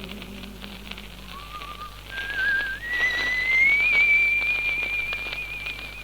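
A held sung note dies away, then a whistled phrase climbs in three steps to a long, wavering high note. This is on an old 78 rpm shellac record, with light surface crackle throughout.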